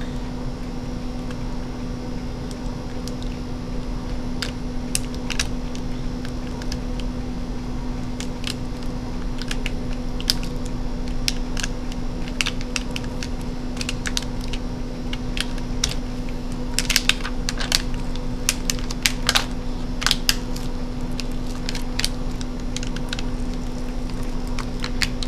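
Scattered small clicks and crackles of fingers picking and peeling tape off a laptop LCD panel's ribbon-cable connector, bunched most densely about two-thirds of the way through, over a steady low hum.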